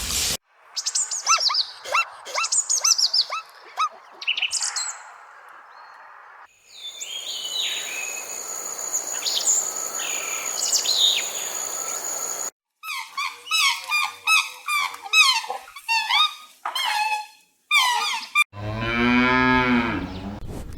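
A run of separate animal calls one after another. First come series of quick falling chirps and whistles, then high whistling sweeps over a hiss, then rapid bursts of chirps. A cow's long, low moo starts near the end.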